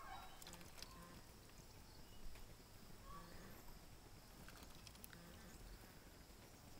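Near silence: quiet outdoor ambience with a few faint clicks.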